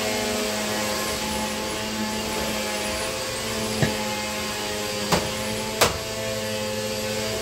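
Glass pot lid clinking three times in quick succession as it is set down on the stovetop, the last clink the loudest, over a steady whirring hum.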